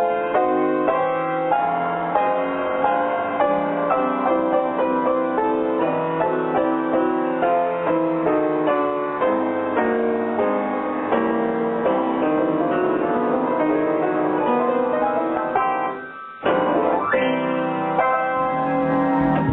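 Piano music: a steady stream of notes. It cuts out briefly about three-quarters of the way through, then comes back with a rising slide.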